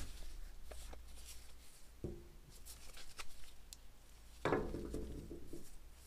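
Handling noise from an old rusty hammer as its head is taken off the wooden handle and the pieces are moved about on a workbench: light rubbing, a small knock about two seconds in, and a louder knock with a short ring about four and a half seconds in.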